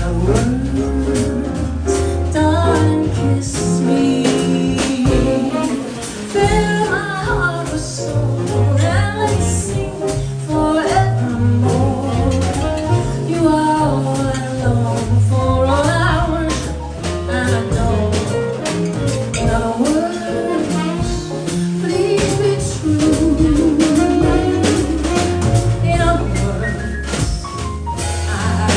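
Jazz band playing a passage without words: a lead melody with vibrato over steady bass and drums.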